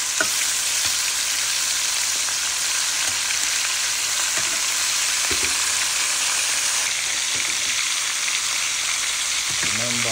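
Oxtail pieces sizzling steadily as they brown in hot oil in a frying pan, with a few short clicks and pops.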